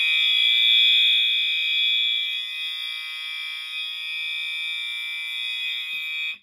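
Fire alarm sounding a steady, continuous high-pitched tone, set off by pulling a Resideo glass-rod pull station; it cuts off suddenly at the end.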